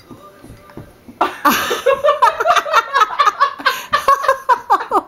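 Hearty laughter that starts about a second in: a quick run of short 'ha' bursts, several a second, each falling in pitch.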